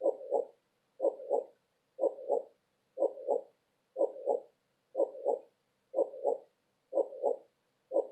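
Heartbeat sound: steady double 'lub-dub' beats, about one a second (about 60 beats a minute), the two beats of each pair close together.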